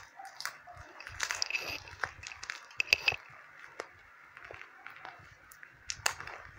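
Crinkling and crackling of a parcel's taped plastic wrapping as it is handled and cut open with scissors, with irregular sharp clicks and snips, busiest in the first three seconds.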